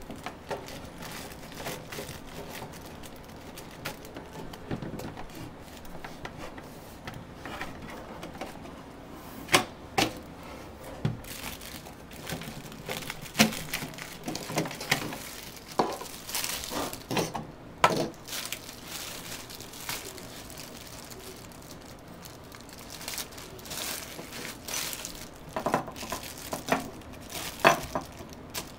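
Hands handling a plastic-framed electric bug zapper and its packing: irregular clicks and knocks against the housing, a few of them sharp and loud, with crinkling.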